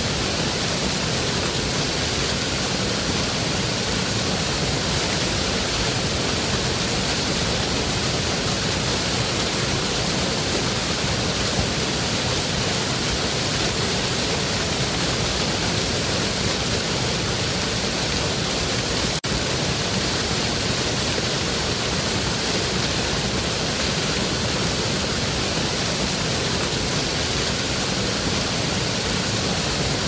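Waterfall and river rapids rushing steadily, an even, unbroken wash of water noise, with a split-second dropout about two-thirds of the way through.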